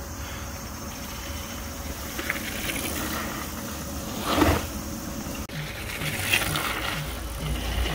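Mountain bike riding noise: a steady rumble and hiss of the bike moving over trail, with one louder scrape about halfway through. Near the end a regular low beat about twice a second comes in.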